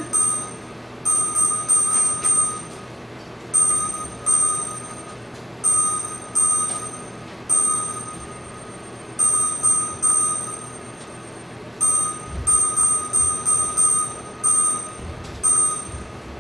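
Electronic bell-like ringing tones from a body sound suit, set off in short bursts one after another, one or two a second; each burst starts sharply and fades within about a second.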